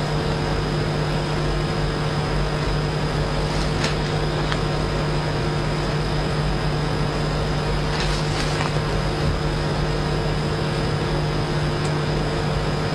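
Steady low hum with an even hiss, the background noise of the recording, with a few faint soft sounds about four and eight seconds in.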